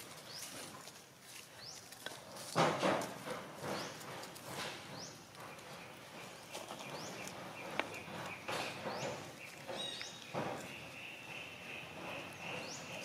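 Long-tailed macaques moving about on dry leaves and stone paving: irregular rustling and scuffing, loudest in a cluster of crunches about two and a half seconds in. Short rising chirps repeat every second or two in the background.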